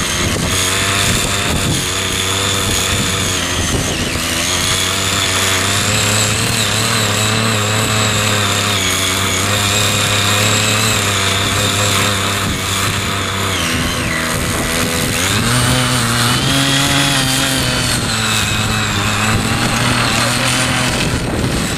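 Small engine of a foldable mini power tiller running steadily under load, its pitch wavering and shifting higher about two-thirds of the way through.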